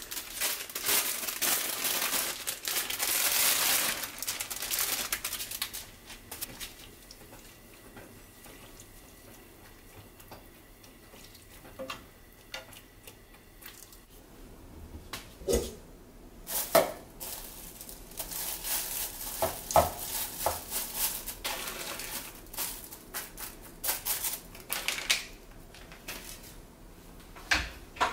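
Cooking bean sprouts in a frying pan of boiling water. A burst of hissing and crackling lasts about five seconds. After a quieter stretch, chopsticks and utensils knock, scrape and clatter against the pan and dishes for the second half.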